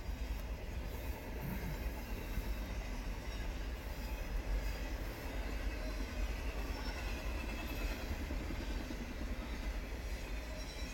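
CSX intermodal freight train's double-stack container cars and trailer flatcars rolling past close by: a steady rumble of steel wheels on the rails.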